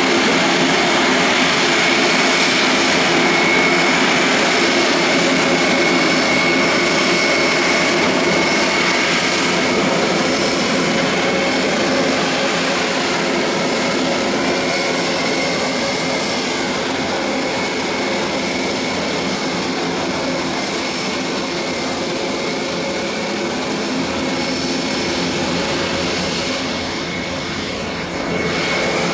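Two Grob 109B motor gliders' piston engines and propellers droning steadily in a low formation pass, the sound slowly fading as they move off.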